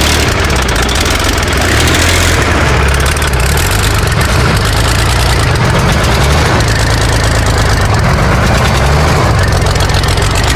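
Soviet V-55 V12 tank diesel running on a test stand on starting fluid sprayed into its intake, loud and uneven, its speed rising and falling. It will not run on its own fuel because air is getting into the fuel system.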